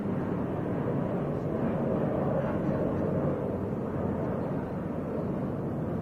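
Steady low rumbling background noise with no distinct calls or knocks, heaviest in the low range and dying away in the upper range.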